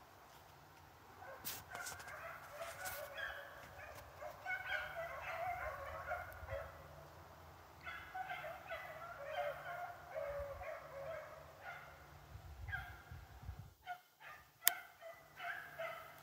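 A pack of rabbit-hunting dogs bays faintly, running on the trail of a swamp rabbit. Their cries come in repeated bunches, and a single sharp click sounds near the end.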